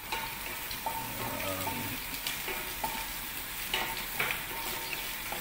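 Chopped garlic sizzling in hot oil in a stainless steel pan, stirred with a wooden spatula, with short scrapes and taps against the pan: garlic being sautéed.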